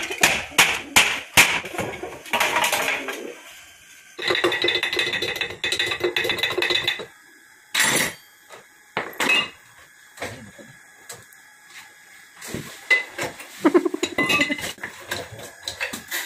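Metal clinking and tapping as a motorcycle's front wheel and axle are worked loose. A quick run of sharp metal strikes in the first second or so is followed by a rattling stretch of about three seconds, then scattered clanks.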